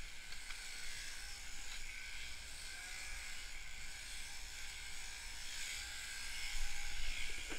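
Mechanical sheep-shearing handpiece, fitted with a 588 comb and cutter, buzzing steadily as it cuts through a ewe's fleece, a little louder near the end.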